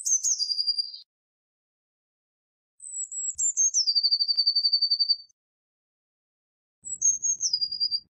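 Blue tit singing: three phrases, each a few high thin notes stepping down in pitch into a fast, even trill.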